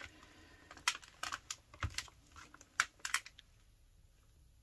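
Light, irregular taps and clicks of paper being folded back and pressed flat by hand on a table, a dozen or so in the first three seconds, then fewer.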